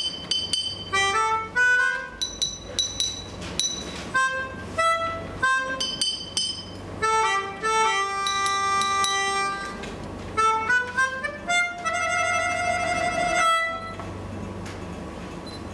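Music from a reedy wind instrument playing short, bouncy notes with a few upward slides, breaking into a fast warbling run about three-quarters of the way in, then dropping to a faint steady hum near the end.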